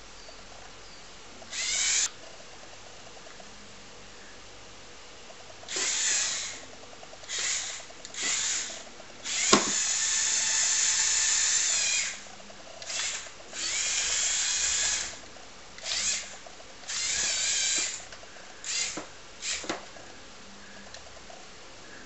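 Small Lego Power Functions electric motors and their plastic gearing whirring in short bursts as the remote-controlled skid steer model is driven and its lift arm and bucket are worked. There are about a dozen bursts, mostly under a second, with the longest lasting about two and a half seconds. A sharp click comes about nine and a half seconds in.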